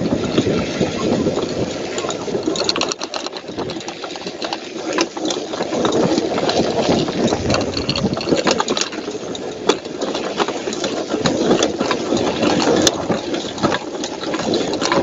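Wind buffeting the microphone of a camera carried on a mountain bike in motion, with rattles and knocks from the bike jolting over a rough dirt trail.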